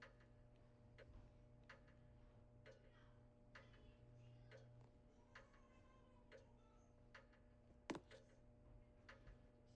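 Casablanca Capistrano ceiling fan running very quietly on low in reverse: a faint steady motor hum with light ticks roughly every second, and one sharper click near the end.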